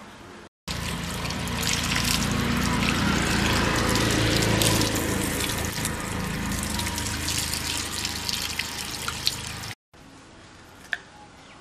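Water running and splashing over fish fillets in a steel plate as they are rinsed and rubbed by hand, the spill hitting a concrete floor. It stops suddenly near the end, and a single click follows.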